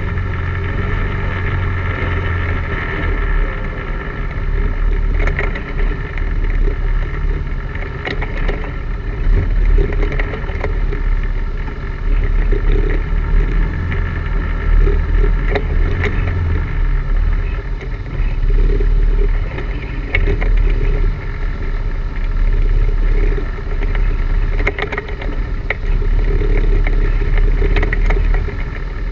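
ATV engine running steadily while riding a rough, rooty trail, with scattered knocks and rattles as the machine goes over rocks and roots.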